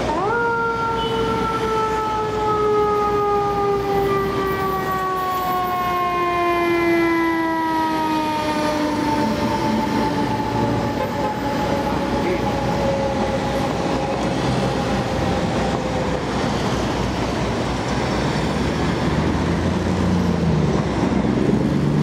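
Fire engine's mechanical siren sounding briefly, then spinning down in one long, slowly falling wail that fades out over about fifteen seconds, over steady city traffic noise.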